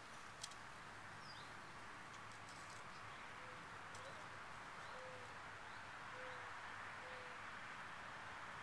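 Faint outdoor background hiss with a bird giving a series of short, soft low calls about a second apart in the middle, and faint higher chirps. A single sharp click sounds just after the start.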